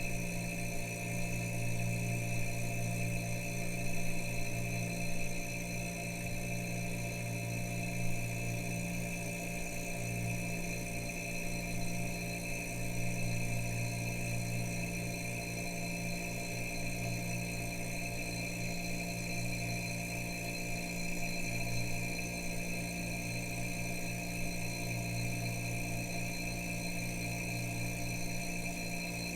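Refrigerator humming steadily: a low compressor hum with a few fainter high steady tones above it.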